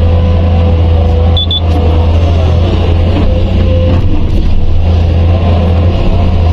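Komatsu PC210 excavator's six-cylinder diesel engine running with a steady low drone and a wavering tone above it, heard from the operator's cab while the machine digs and dumps soil.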